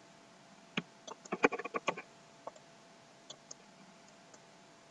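Clicking of a computer mouse and keyboard: a few single clicks, a quick run of clicks about a second in, then a few more scattered clicks, over a faint steady hum.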